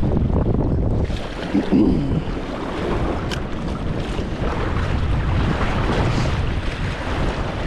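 Wind buffeting the microphone over a steady rush of water below a dam, with a brief louder low sound about two seconds in.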